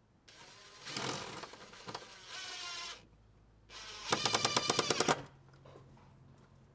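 Power tool run in two bursts, the second about two seconds long with a rapid hammering rattle of about ten strokes a second.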